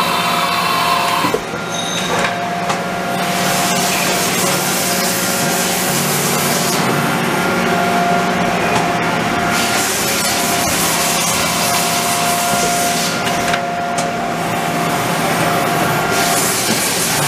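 Steady machine-shop background noise: a constant hum with a thin whine over it and a hiss that swells and fades.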